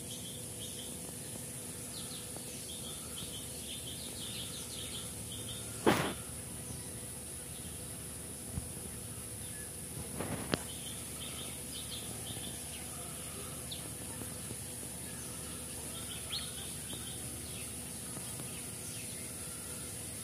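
Small birds chirping in short, quick runs over a steady hiss, with two sharp knocks, about six and ten seconds in.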